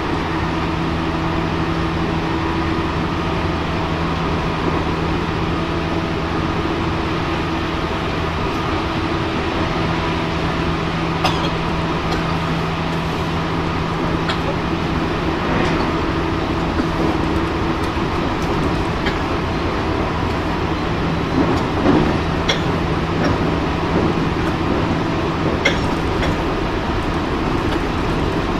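Running sound inside a JR Central 313 series electric motor car, KuMoHa 313-310, travelling at speed: a steady hum over the noise of the wheels on the rails, with a few short sharp clicks in the second half.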